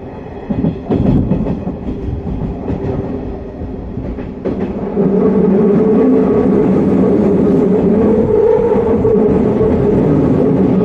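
Hanshin 1000 series electric train heard from inside motor car MoHa 1006 while running between stations: steady wheel-on-rail rumble with a few knocks about a second in, turning suddenly louder and heavier about five seconds in.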